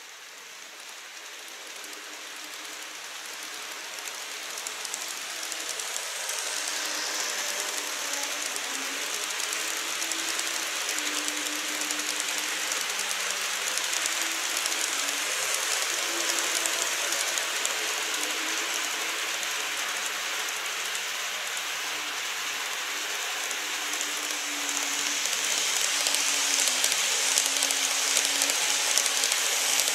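Model trains, an E233 series 3000 set and then an E257 series set, running on curved track. Their wheels make a dense rattling hiss over the rails, with fine clicking and a wavering motor hum. The sound grows louder over the first several seconds as a train approaches, and swells again near the end as a train passes close.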